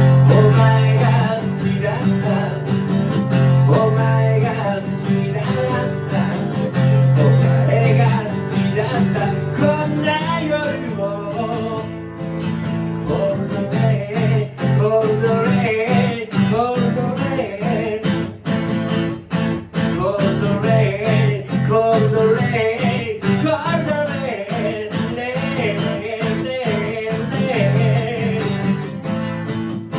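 Strummed acoustic guitar playing a song, steady throughout, with a melody line running over it.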